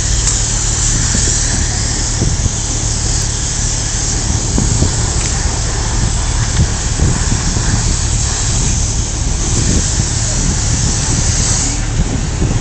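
Porsche 911 GT2 RS twin-turbo flat-six idling steadily, a low even hum, with a steady hiss over it.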